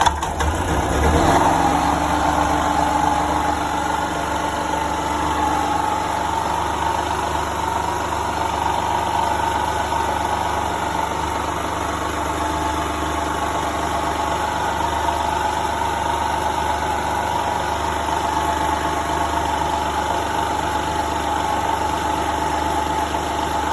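Small petrol portable generator engine starting, surging briefly about a second in, then running steadily. It runs now that its crankcase oil has been topped up to the level its low-oil sensor needs.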